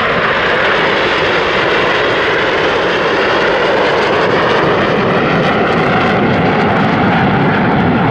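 BAE Hawk T1 jet trainers flying a display manoeuvre: loud, steady jet-engine noise whose pitch shifts slowly as they pass.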